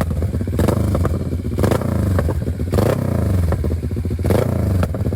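CF Moto 650NK's parallel-twin engine running loud through an SC-Project aftermarket exhaust, revs rising and falling, with repeated sharp cracks.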